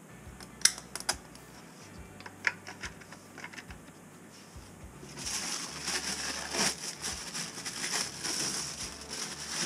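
Small sharp clicks of brass washers and nuts being fitted onto toilet closet bolts. From about five seconds in, dense, louder crinkling of a plastic wrapper as a wax ring is unwrapped.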